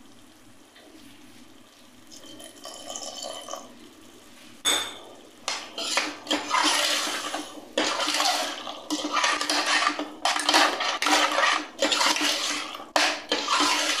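Metal spoon scraping and stirring wet masala paste against the bottom and sides of a pressure cooker pot. After a quieter start it comes in repeated scraping strokes, starting about five seconds in.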